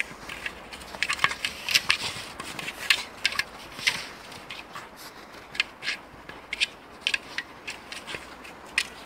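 Dry snow crunching: sharp, irregular crunches, some coming in quick clusters.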